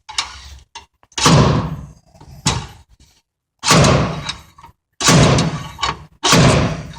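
Five heavy metal hammer blows, about one every 1.2 s, each ringing out briefly, as a screw-tipped puller driven into a 1968 Chevrolet C20's ignition lock cylinder is hammered to yank the cylinder out without a key. The cylinder does not come free.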